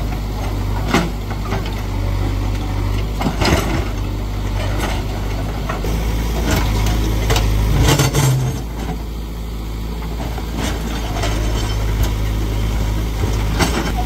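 JCB backhoe loader's diesel engine running steadily under load, with sharp cracks and clatters of brick and masonry breaking and falling every few seconds. The engine briefly revs up about eight seconds in.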